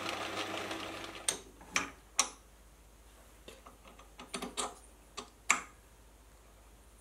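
Metal lathe running steadily, then winding down about a second in, followed by scattered sharp metal clicks and taps as an annular cutter's shank is slid by hand into a freshly bored holder in the spindle.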